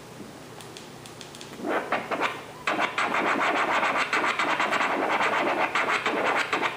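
Vinyl record being scratched by hand on a Numark PT01 Scratch portable turntable. Quiet at first; the scratching starts a little under two seconds in and becomes a fast, continuous run of quick strokes from about a third of the way through.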